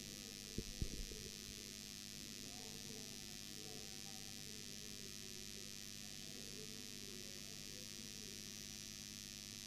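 Steady electrical mains hum with a background hiss, and two faint knocks about a second in.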